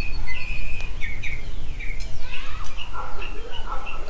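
Several birds chirping and whistling in many short, quick calls over a steady low rumble.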